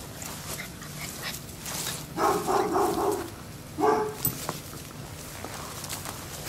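Miniature schnauzers at rough play: a dog gives a quick run of small barks about two seconds in, then one more short bark a second later.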